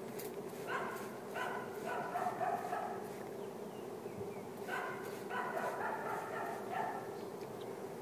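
Steady hum of a large honey bee swarm in flight. Repeated short higher-pitched calls come and go over it.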